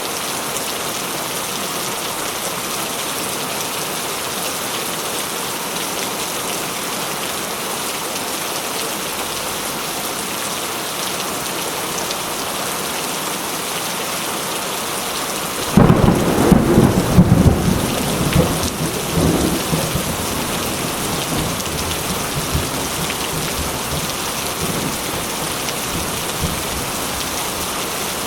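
Steady rain, then a sudden loud clap of thunder a little past halfway that rumbles for about four seconds and dies away under the rain.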